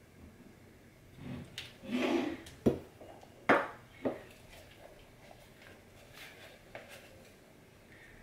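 Wooden spoon scraping and knocking inside a hand-blender beaker while scooping out thick blended frozen fruit: a scrape about two seconds in, then three sharp knocks over the next second and a half.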